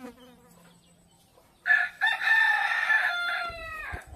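A rooster crowing once: one long call of about two seconds that starts a second and a half in, holds level, then drops in pitch and breaks off.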